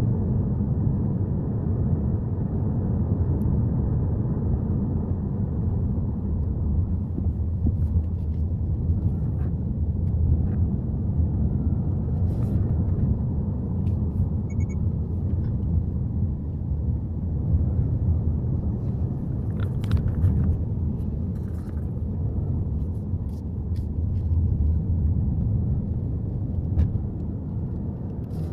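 A Subaru Forester driving uphill: steady low engine and road rumble, with a few faint clicks here and there.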